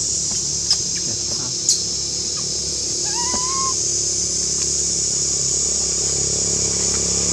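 Steady high-pitched insect chorus in forest, with two sharp clicks in the first two seconds and an animal's short call about three seconds in that rises and then holds its pitch.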